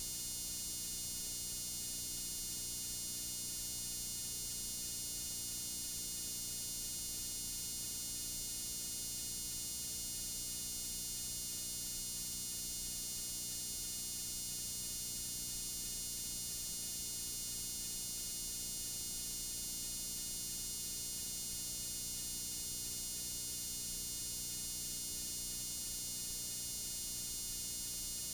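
Steady static hiss from blank analog videotape, strongest in the high treble, with a faint low hum underneath.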